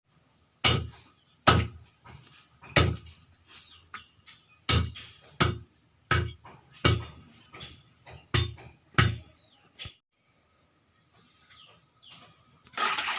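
A series of about ten heavy knocks, irregularly spaced under a second apart, stopping about nine seconds in.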